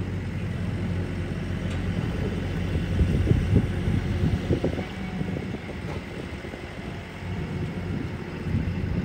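Boom truck's engine running steadily as the crane hoists a bundle of wooden roof trusses, with a few low knocks partway through.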